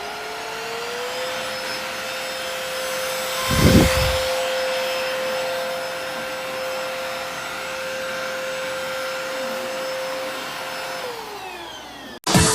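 Cordless stick vacuum's motor running with a steady whine, rising in pitch as it spins up over the first second and falling away as it winds down near the end. A low thump about three and a half seconds in is the loudest sound.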